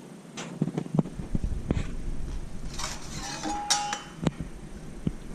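Metal fittings and a hand tool clinking and knocking while a threaded oil-line fitting is screwed into the bushing on a vacuum pump's oil filter housing, with a short scraping rattle about three seconds in.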